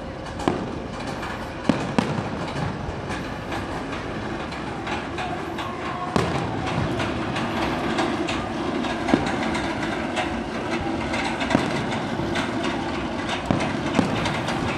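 Goliath inverted roller coaster train running along its steel track: a continuous rolling rumble that gets louder about six seconds in. Sharp firework bangs go off through it.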